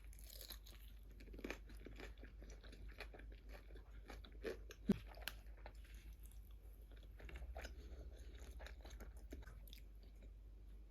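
A person chewing crunchy food close to the microphone: a run of small crunches and crackles, with one sharper crunch about halfway through.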